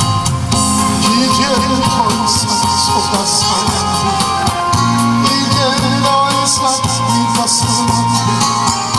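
A man singing into a microphone over amplified musical accompaniment with a steady beat, played through PA speakers.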